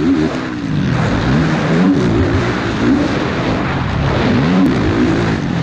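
Yamaha YFZ450R quad's single-cylinder four-stroke engine, heard on board, revving hard and easing off again and again as the throttle is worked. The pitch climbs and drops several times.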